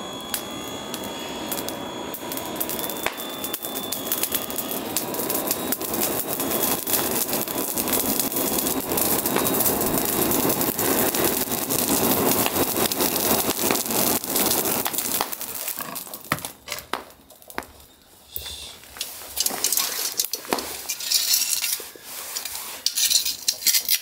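Handheld blower driving air into a wood-and-charcoal fire pit, a steady rush of air over dense crackling as sparks fly, to revive a weakened fire. A little past halfway the steady blowing gives way to shorter, broken bursts and crackling.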